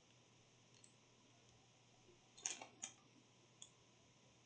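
Near silence: room tone, with a few short, faint clicks about two and a half seconds in and one more a second later.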